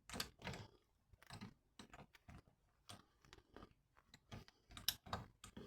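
Faint, irregular clicks and scrapes of hand tools on metal as a seized, corroded fork damper bolt is worked loose.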